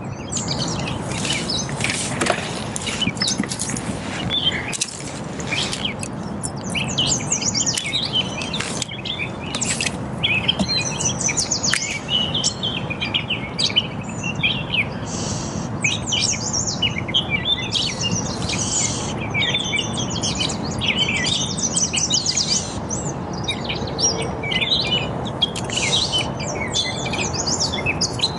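Songbirds chirping and singing, many short calls and trills overlapping without a break, over a steady low background rush.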